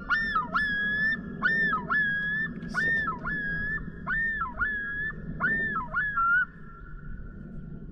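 Common loon giving its yodel: about seven loud, repeated wailing phrases, each dipping in pitch and swinging back up, ending about six and a half seconds in. It is the territorial call of a male loon.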